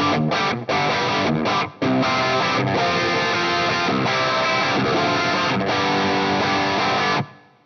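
PRS SE CE 24 solidbody electric guitar with 85/15 "S" humbucking pickups, strumming dense chords broken by several short, sharp stops in the first two seconds. The chords are cut off near the end and ring away into silence.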